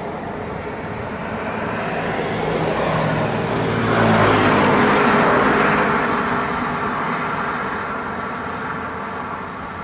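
Kubota DC-93 rice combine harvester running, its engine and threshing machinery growing louder, loudest about four to six seconds in, then fading as it moves past.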